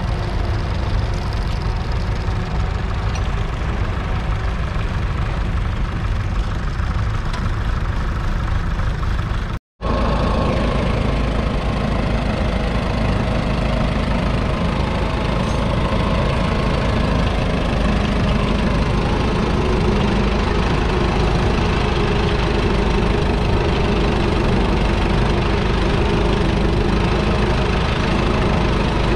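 1942 Fordson Model N's 4.4-litre four-cylinder petrol/TVO engine running steadily while the tractor pulls a two-furrow trailed plough through the soil. The sound breaks off for a moment about ten seconds in, then the engine carries on.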